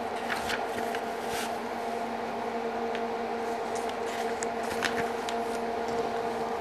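Paper rustling from an instruction booklet's pages being turned, with light clicks from small plastic jig parts handled on a workbench, over a steady low electrical hum.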